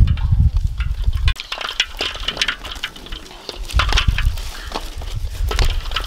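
Eggshells clicking and clinking against one another and the metal wok as hands move and set the eggs in shallow water. A low rumble runs under it in the first second and again over the last two seconds.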